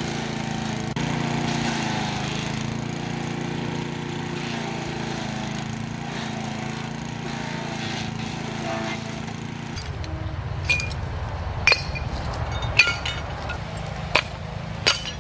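Small gas-engine wood chipper-shredder running steadily as brush is fed into its hopper. About ten seconds in it gives way to glass bottles and shards clinking as they are tossed into a plastic trash bag, a sharp clink every second or so.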